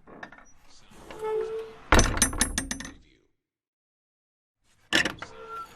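Old wooden door or wicket gate creaking on its hinges, then shutting with a loud bang followed by a quick clicking rattle of its latch and fittings. After a pause it is worked again: a sharp knock and a short creak near the end.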